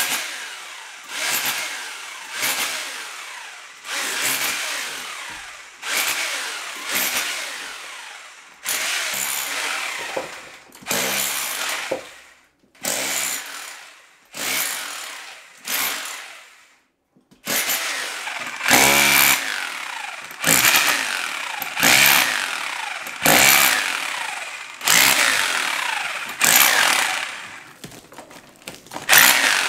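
Hand saw cutting through wood in slow, regular rasping strokes, about one a second, with a brief pause about halfway through.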